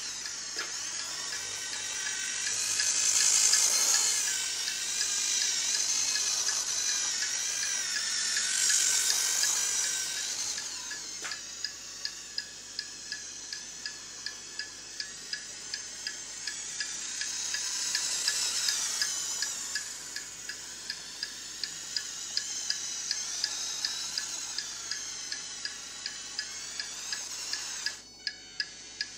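High-pitched whine of the Turbo Racing 1:76 C50 micro RC semi truck's small electric motor and gears, rising and falling in pitch as the truck speeds up and slows. From about a third of the way in, a regular ticking of about two a second runs under a fainter whine.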